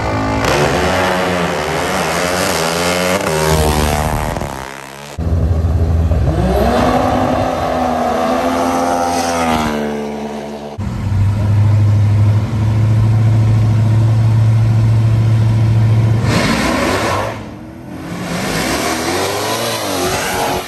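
Drag-strip vehicle engines revving hard, with pitch climbing and falling as they accelerate down the track. Through the middle a long steady high-revving drone holds, and the sound breaks off abruptly several times where one run gives way to the next.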